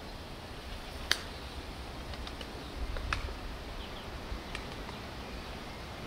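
Steady low background rumble with two sharp clicks, the louder about a second in and another about two seconds later, plus a few fainter ticks and some faint high chirps.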